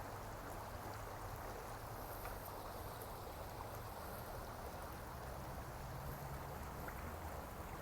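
Steady running water, like a flowing stream, with a low hum underneath.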